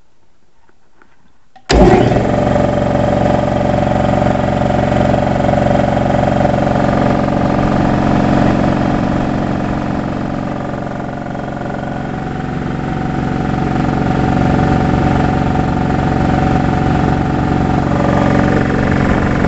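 220-volt Porter Cable shop air compressor starting up suddenly about two seconds in, its electric motor and piston pump then running steadily as it builds pressure in the tank.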